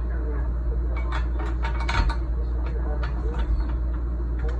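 Small metal parts and hand tools clicking and knocking while being handled during assembly of a tiller, in scattered short strokes, the loudest about two seconds in.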